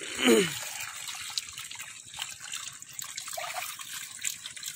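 Shallow water trickling and splashing in a muddy channel, where small fish are trapped against a bamboo screen. About half a second in there is a brief falling voice.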